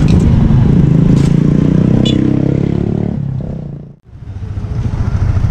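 A motor vehicle's engine running close by, a loud low rumble that fades away to near nothing about four seconds in, then a low engine rumble comes back.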